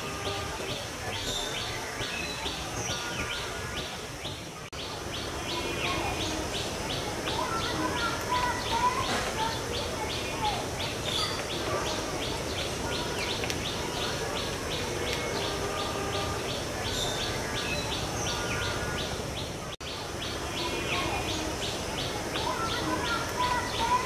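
Natural outdoor ambience of several birds chirping and calling over a steady high insect-like drone, with a fast, even train of short high ticks running under it. The sound dips briefly twice, about five seconds in and near twenty seconds.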